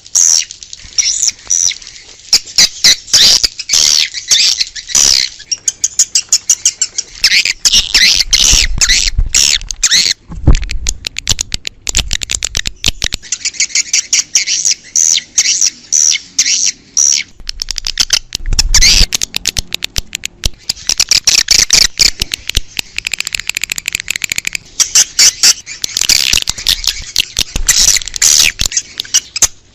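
Swiftlets twittering: a dense stream of rapid, high-pitched chirps and clicking calls in bursts with short gaps. This is the outdoor swiftlet call used as a lure to draw swiftlets in to roost and nest.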